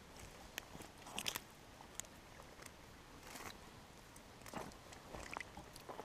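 Irregular soft crunches and crackles of footsteps over dry twigs and needle litter on a forest path.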